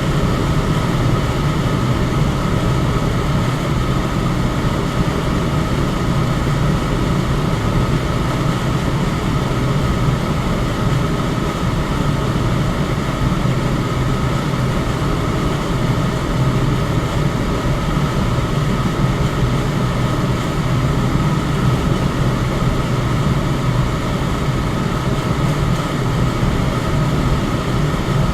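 Electric fan running steadily: an even rush of air with a low hum and a faint steady whine.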